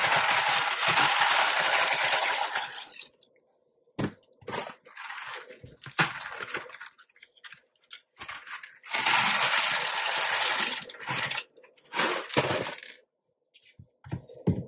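Dry penne rigate pasta pouring out of a cardboard box into a slow cooker, rattling against the box and onto each other. There are two long pours, one lasting about three seconds and one of about two seconds near the middle, with scattered clicks of the box and tubes in between.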